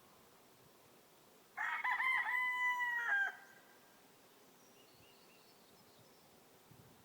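A rooster crowing once, about a second and a half in: one call of under two seconds that rises, holds and drops off at the end. Faint, high bird calls follow a few seconds later.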